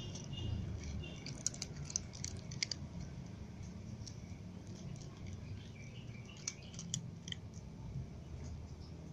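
Cats crunching dry kibble: scattered sharp crackly clicks, coming thickest in two clusters, over a low steady background rumble.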